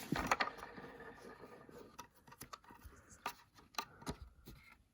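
Light handling sounds: scattered short clicks and taps, with faint rustling, as plastic vacuum-cleaner parts are picked up and turned over.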